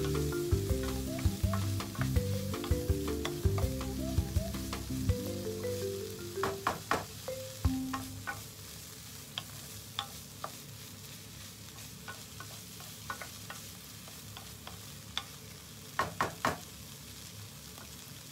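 Broccoli, carrots and shrimp sizzling in a non-stick frying pan while a wooden spatula stirs them, with sharp clicks and taps of the spatula against the pan, in clusters about seven seconds in and again near the end. Soft piano-like background music plays over the first five seconds, then stops.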